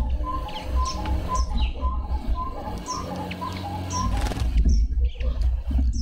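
Garden birds calling: a steady series of short, even notes about two a second, with high, quick falling chirps over it. The series stops about four seconds in, where a brief rush of noise cuts across.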